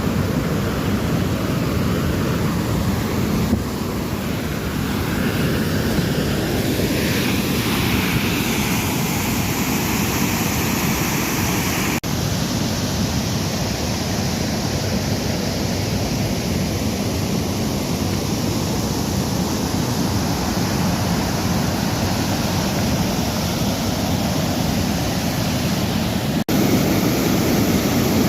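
Waterfall and river water rushing in a steady, loud roar of noise.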